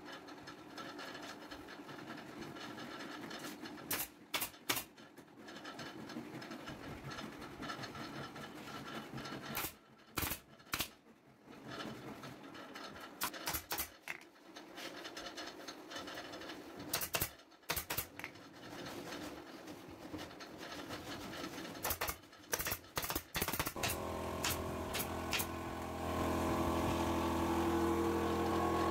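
Pneumatic upholstery staple gun firing into a wooden sofa frame in short bursts of two to four sharp shots every few seconds. Near the end an air compressor's motor starts and runs with a steady hum that grows louder.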